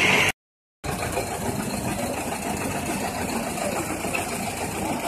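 An engine running steadily at idle. The audio drops out to silence for about half a second near the start, then the idling resumes.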